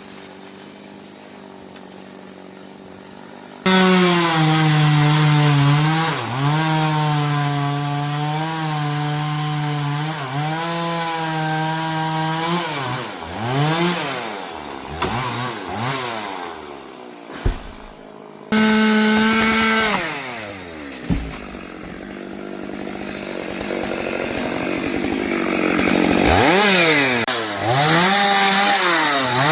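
Chainsaw running at full throttle, cutting into wood. The engine pitch sags under load and recovers, then rises and falls several times as the throttle is worked. It starts abruptly about four seconds in after a faint hum, with another sudden change about two-thirds of the way through.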